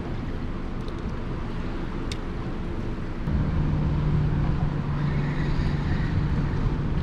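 Steady wind and water noise, joined about three seconds in by a steady low engine hum.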